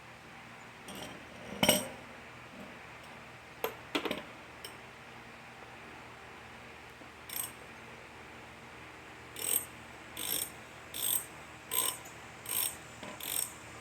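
Ratchet wrench clicking in short, regular strokes, about one every three-quarters of a second, as a mower's rear wheel bolt is tightened; this starts about two-thirds of the way in. Before that, a few scattered clicks and knocks of metal parts being handled.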